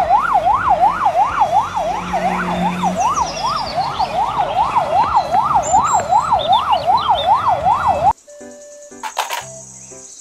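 Police car siren in a fast yelp, its pitch sweeping up and down nearly three times a second, cutting off abruptly about eight seconds in. A few quieter short tones follow.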